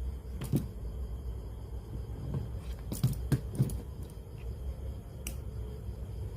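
A few short sharp clicks or light knocks, three of them in quick succession about three seconds in, over a low steady hum.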